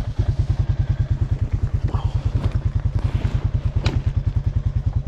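Honda ATV's single-cylinder engine idling steadily in a fast, even chug of about thirteen beats a second. A sharp click comes just before four seconds in.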